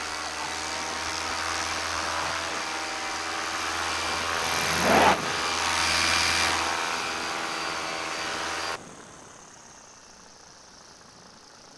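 Paramotor engine and propeller running steadily in flight, with wind noise over it. There is a brief louder surge about five seconds in, and the sound drops away abruptly about three seconds before the end.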